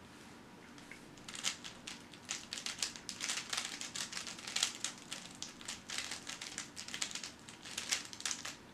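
A 3x3 speedcube being turned rapidly by hand, its plastic layers clicking and clattering in quick runs. The turning starts about a second in and stops near the end.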